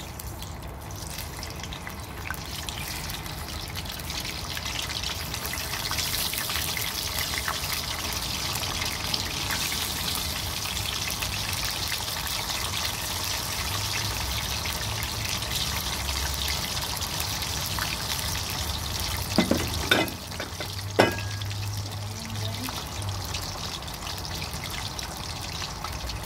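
Potato slices deep-frying in hot oil in a wok: a steady sizzle that swells in the first couple of seconds as the slices go in. A few sharp knocks stand out about three-quarters of the way through.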